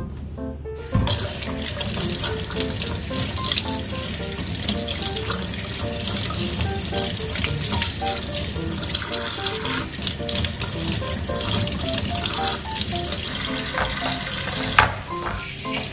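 Kitchen tap running, water splashing over a metal gas-stove pan support that is being rinsed by hand in the sink; the flow starts suddenly about a second in. Background music plays under it, and a sharp knock comes near the end.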